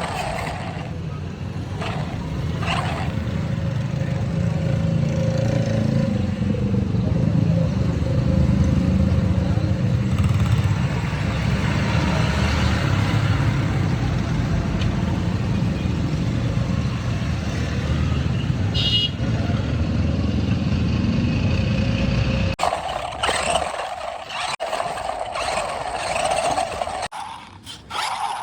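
Steady low rumble of a running motor vehicle that cuts off abruptly about three-quarters of the way through.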